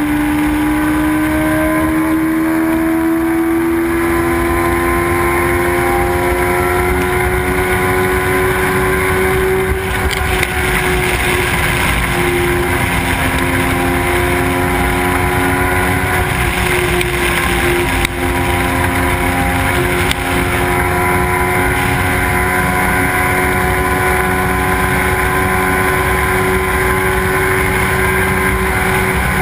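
Suzuki sport motorcycle's engine running at speed on the open road, recorded on board with loud wind rush over the microphone. The engine note climbs slowly for about the first ten seconds as the bike gains speed, then holds steady at cruising speed.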